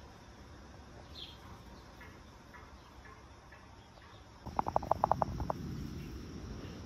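Outdoor ambience with faint bird chirps. About four and a half seconds in, a steady high insect trill starts along with a louder low noise, and a quick run of about nine sharp pulses, the loudest sound, follows at once.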